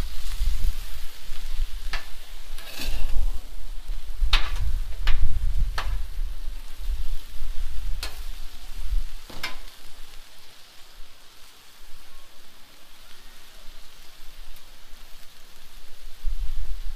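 Steak, sweet peppers and onions sizzling on a Blackstone flat-top griddle, with a metal spatula scraping and tapping on the steel cooking surface several times in the first ten seconds. A low rumble on the microphone comes and goes over the first half.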